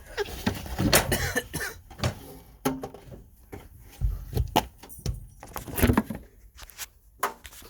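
Irregular knocks and clatter of boards and tools being handled, a dozen or so sharp hits spread unevenly with some duller thumps.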